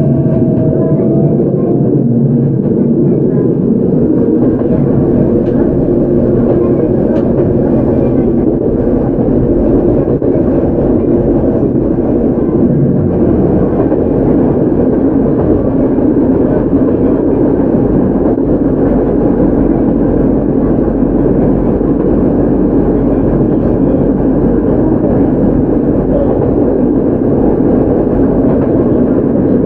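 Steady running noise inside a Hokuriku Railroad 03 series electric train: wheels on the rails and the traction motors of this ex-Tokyo Metro car with Mitsubishi IGBT inverter control, on the move between stations.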